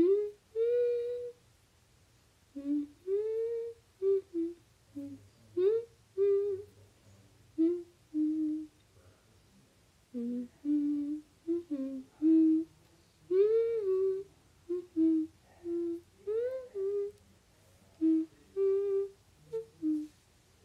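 A woman humming a slow tune in short notes, some sliding upward, with brief pauses between phrases.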